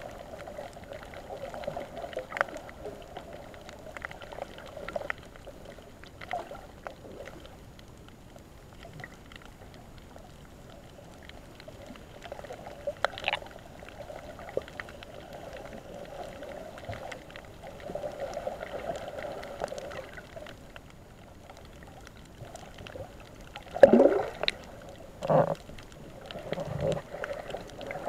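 Underwater water noise: a steady muffled rush with scattered clicks and crackles. Near the end come two loud, short gurgling bursts, the first sliding down in pitch.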